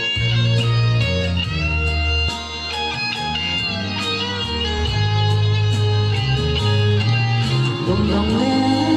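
Guitar-led music over a moving bass line and a steady drum beat.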